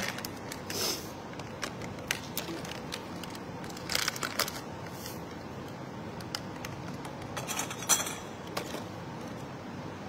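Plastic drink-mix sachets crinkling and tearing as they are opened and their powder poured out, in a few short rustling bursts.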